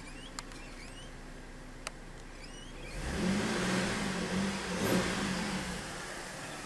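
A car engine runs louder for about three seconds from near the middle, its pitch wavering up and down, over a low steady hum with a few faint chirps and clicks before it.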